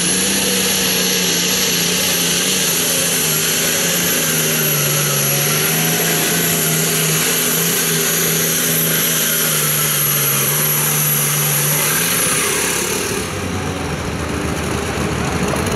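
Light super stock pulling tractor's turbocharged diesel engine running flat out under load as it drags the sled, with a high steady whistle over the engine note. About thirteen seconds in, the whistle stops and the engine sound drops, as the tractor comes off full power.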